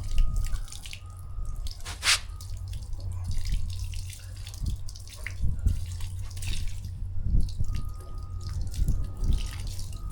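Hands handling materials to start the job: scattered light taps, clicks and rustles, with one sharper click about two seconds in, over a steady low hum.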